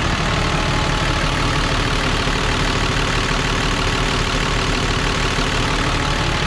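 Mercedes-Benz diesel engine of a 2006 Freightliner M2 service truck idling steadily, already warmed up, heard close at the open engine bay.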